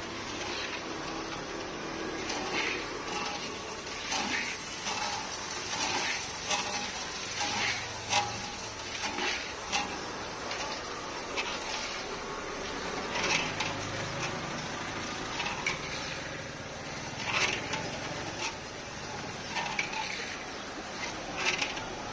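Onion vadagam deep-frying in a wok of hot oil, a steady sizzle, with a metal slotted skimmer scraping and clinking against the wok now and then as the rings are stirred.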